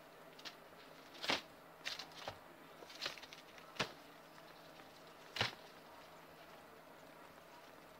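Guinea pigs moving about in shredded-paper bedding close to the camera: irregular sharp ticks and rustles, the loudest about a second in and again about five seconds in.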